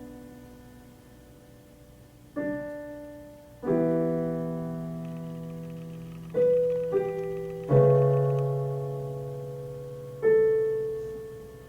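Slow solo piano music: about six chords, each struck and left to ring and fade, a few seconds apart with two struck close together in the middle.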